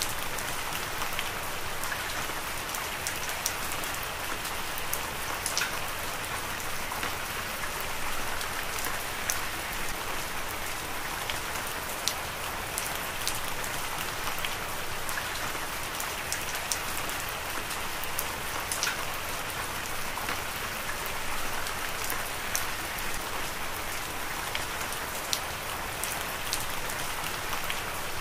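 Heavy rain falling steadily: a dense, even hiss scattered with frequent sharp ticks of single drops striking close by.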